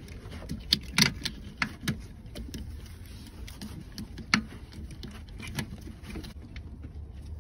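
Scattered light metallic clicks and knocks as an alternator is worked by hand into place on its engine mount, the sharpest about a second in and again around four seconds.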